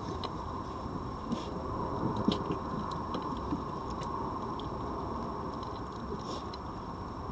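Red foxes eating from plates of meat: scattered small clicks and crunches of chewing over a steady background hum.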